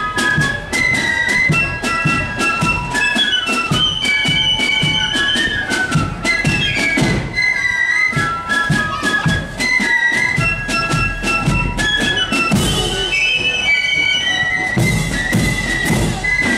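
Marching flute band playing a march tune: a high flute melody over a steady beat of drum strikes.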